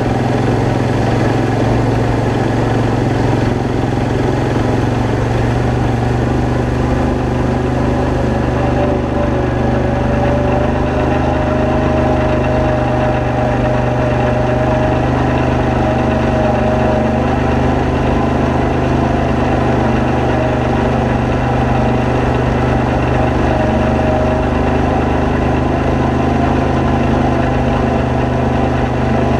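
ATV engine running steadily as the quad is ridden along a rough gravel trail, with a faint whine that slowly rises in pitch through the middle.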